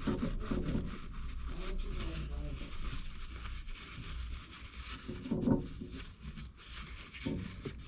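A rag rubbing down freshly soldered copper pipes to wipe off leftover flux, in quick repeated strokes.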